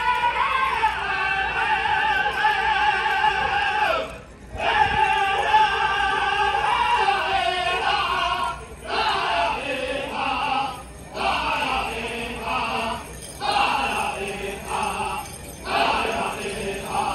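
Powwow singers singing a chicken dance song: high, wavering voices carrying the melody in phrases with short breaks between them.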